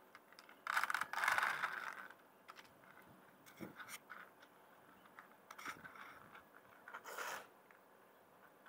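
Dry cat kibble poured by hand into a plastic food tray, rattling and scraping for about a second and a half, followed by a few shorter scrapes and rattles from the tray as the cat eats.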